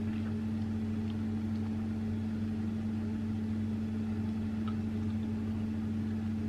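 A kitchen appliance running with a steady low electrical hum, with a few faint light ticks.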